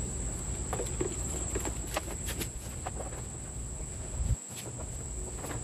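Dry Miscanthus grass leaves rustling and snapping in scattered short crackles as the stalks are stripped by gloved hands, over a steady high insect trill. A low rumble stops abruptly about four seconds in.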